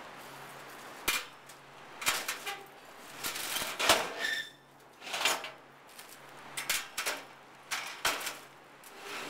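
Stacked wire lunch racks being dragged with a hook across a metal truck floor: repeated sharp metallic knocks and rattles, roughly one a second, with scraping between them.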